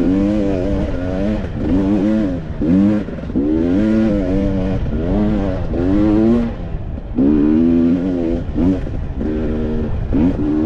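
2020 Husqvarna TX300i's single-cylinder two-stroke engine under load, the throttle worked open and shut again and again so the revs rise and fall about once a second. The revs drop off briefly a little past halfway.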